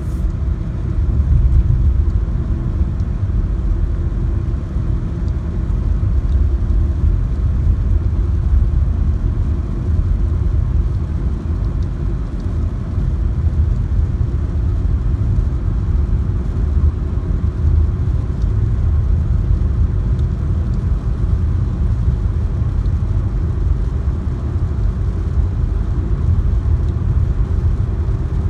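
Heavy rain falling, heard as a steady, dense low rumble with little hiss.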